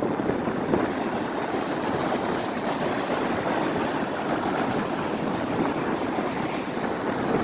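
Large waves rolling in and breaking on the shore, a steady rushing wash of surf.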